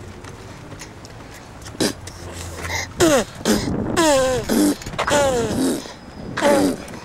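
Baby spitting and blowing a short spluttery raspberry near two seconds in, then a run of about five high vocal squeals, each falling in pitch.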